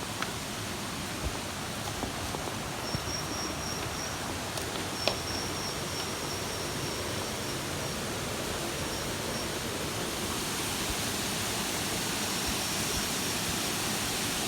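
Rushing water of a waterfall, a steady hiss-like roar that grows slightly louder near the end, with a thin high whistle coming and going in the middle.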